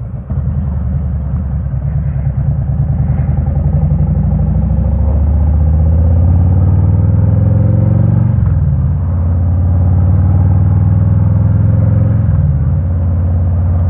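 Harley-Davidson Road King's V-twin engine under way, accelerating with its note climbing steadily; the pitch drops sharply about eight seconds in and again near the end as it shifts up a gear, then climbs again.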